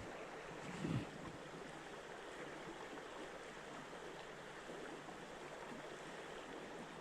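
River water flowing steadily, with a brief low thump about a second in.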